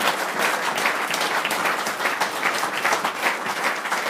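Audience applauding: many hands clapping steadily, thick and unbroken.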